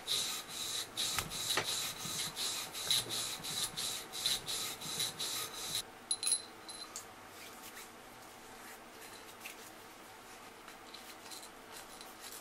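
A .40-calibre bore brush scrubbed quickly back and forth through an HK USP Expert pistol barrel: a rapid run of scraping strokes that stops about halfway, followed by only faint rubbing and handling.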